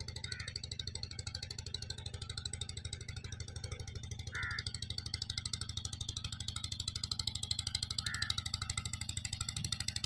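Motorcycle engine running steadily at a fast, even beat while riding.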